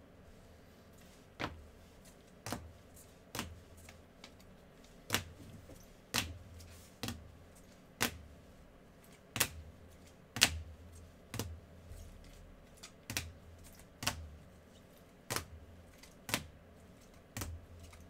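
Rigid plastic top loaders (trading-card holders) clacking against each other as they are moved one at a time through a stack: sharp single clicks about once a second, slightly irregular.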